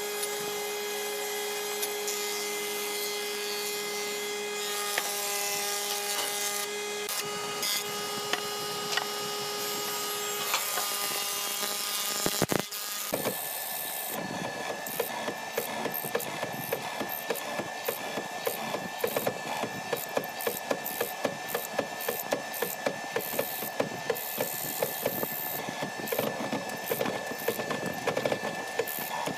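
A woodworking machine's motor running with a steady hum, then, after a break about twelve seconds in, a hollow-chisel mortiser cutting mortises into a hardwood board: a rapid run of sharp clicks and knocks as the chisel chops and the chips break out, over the machine's running.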